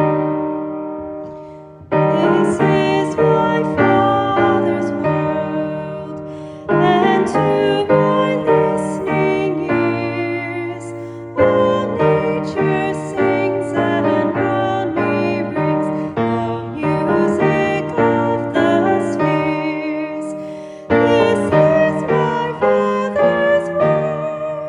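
Piano playing the opening worship song, chords struck and left to ring, in phrases that fade and start again with a fresh chord several times.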